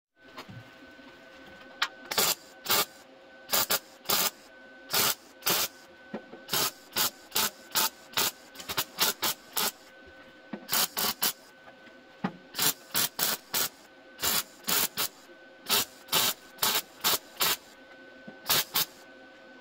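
MIG welder tack- and stitch-welding thin car body sheet steel: dozens of short crackling bursts of arc, each a fraction of a second, in quick runs with brief pauses between them, over a steady hum.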